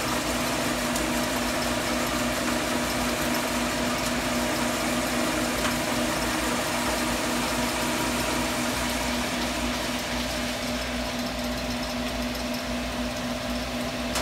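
A large 21-inch by 80-inch engine lathe running steadily, its motor and headstock gearing giving a constant hum with a few steady tones over a noisy whir.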